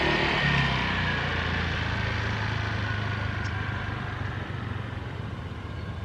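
A motor scooter's engine running with a steady low hum that gradually fades.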